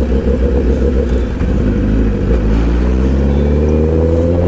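Honda CBR1000RR Fireblade's inline-four engine running in gear at low revs, its pitch climbing steadily from about a second and a half in as the bike accelerates.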